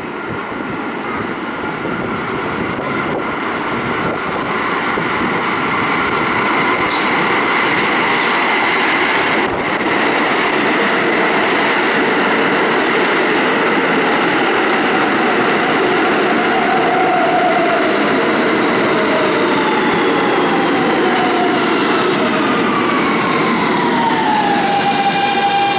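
An R160 subway train pulling into the station: a loud, steady rumble of wheels on rail, with a whine that falls in pitch over the last few seconds as the train slows to a stop.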